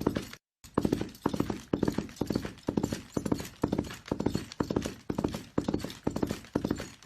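A horse galloping: hooves striking in quick repeating groups of several beats, about two strides a second, keeping an even rhythm. A brief dead-silent gap cuts in about half a second in.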